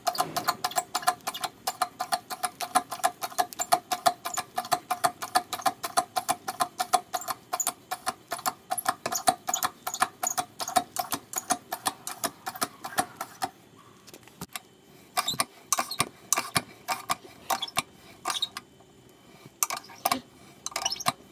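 Hand-lever fluid pump being stroked rapidly, with a sharp click and a short squeak on each stroke, as it forces fluid into an MGF's Hydragas suspension to bring the system up to pressure. About two-thirds of the way through, the strokes turn sparser, quieter and uneven.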